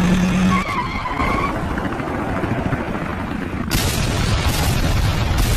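Cartoon sound effects: a rumbling vehicle engine running under dense noise, then a sudden loud blast a little under four seconds in as a helicopter explodes.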